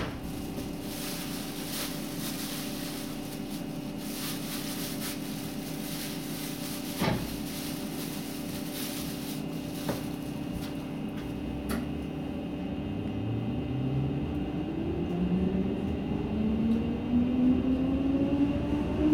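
A DB Class 420 S-Bahn electric multiple unit, heard from inside the passenger car, stands with a steady electrical hum from its equipment and a few isolated knocks. About two-thirds of the way in, the train starts to pull away and its traction motors give a whine that rises steadily in pitch as it accelerates.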